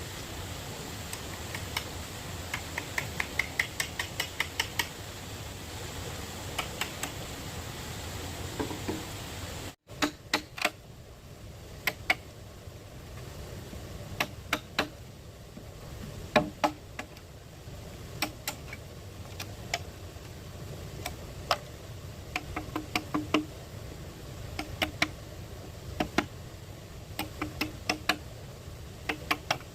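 Sharp taps and clicks, some in quick runs of several a second and others single and scattered; the background changes abruptly about ten seconds in.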